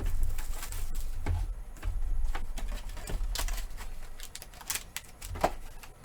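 Trading cards being handled and flipped through, making irregular light clicks and rustles over a low steady hum.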